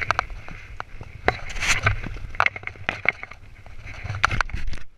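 Ski-touring boots and a ski pole knocking and scraping on granite and steel ladder rungs during a climb on a rock face: an irregular run of sharp clicks and taps over a steady rustle.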